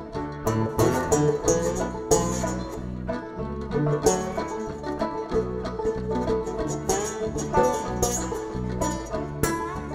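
A folk band playing live, an instrumental passage with no singing: quick picked notes over a steady, repeating bass line.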